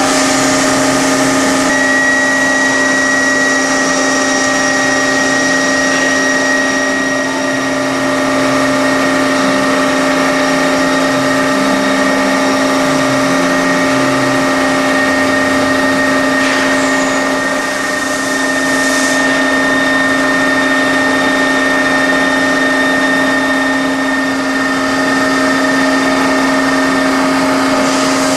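Machine-tool spindle running at a constant speed, drilling metal with a long 5 mm drill: a steady hum with a high whine that does not change in pitch.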